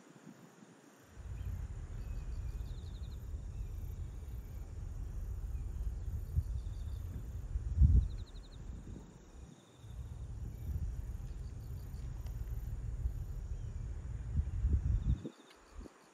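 Low rumble of wind buffeting the microphone in long gusts, with faint, repeated insect trills in the background.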